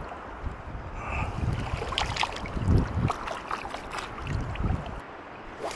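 Wind buffeting the camera microphone over shallow water lapping on a coral reef flat, with a few sharp ticks around the middle.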